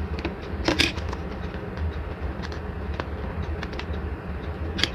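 A plastic mini 4WD body shell and its sticker sheet being handled while decals are applied: brief crinkles and light clicks, the loudest about a second in and another near the end, over a steady low hum.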